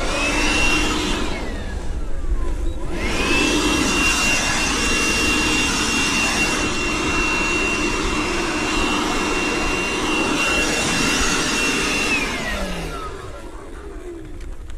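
Cordless battery leaf blower running: a short burst that spins up and dies away, then a long steady run with a high motor whine over rushing air, winding down near the end.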